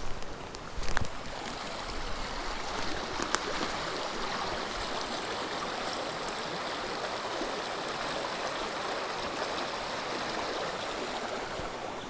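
Small river rushing steadily over stones. A few sharp knocks come in the first second.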